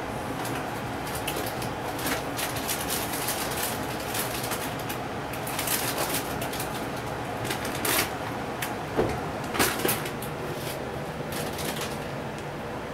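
Scattered light clicks, taps and rustling over a steady room hum, with a few louder knocks about eight and nine to ten seconds in.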